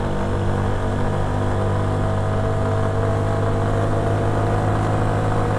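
Italika Z150 motorcycle's single-cylinder four-stroke engine running at an even speed while riding, heard from the rider's own bike.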